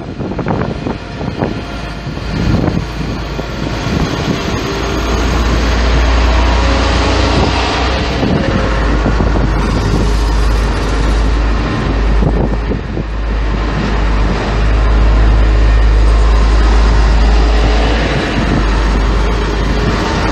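Red DB Regio Talent diesel multiple unit pulling out close by. Its diesel engines run under load with a loud, steady deep drone that builds from about four seconds in. At the start, another train passes on the next track.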